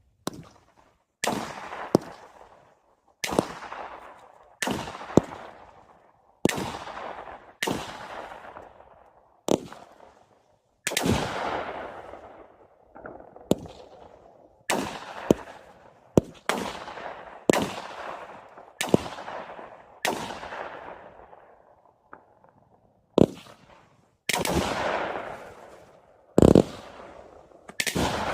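Consumer fireworks firing a long run of shots, about twenty, roughly one every second or so. Each is a sharp bang that trails off over about a second.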